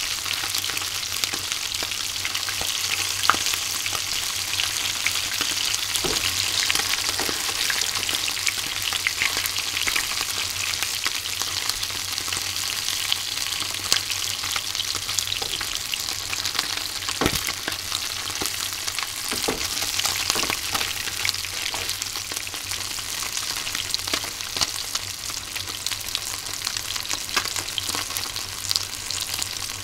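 Chika (surf smelt) deep-frying unbattered in hot oil: a steady sizzle with scattered sharp clicks and pops.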